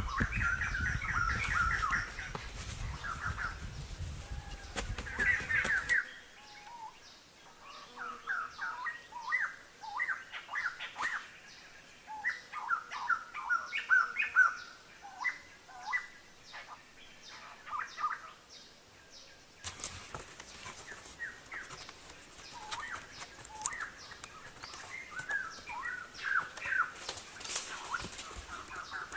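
Small birds chirping and twittering in quick, repeated short notes, over a low outdoor background hum that drops away abruptly near the start and comes back about two-thirds of the way through.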